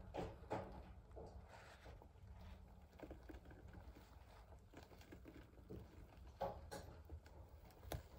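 Faint, scattered rustles and soft clicks from a boa constrictor swallowing a rat, with a few sharper clicks near the start and near the end.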